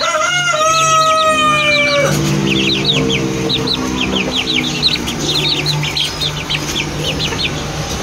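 Aseel chickens: quick high chick peeps run throughout, over two drawn-out crows. A higher crow, falling slightly in pitch, fills the first two seconds, and a lower crow follows until about five seconds in.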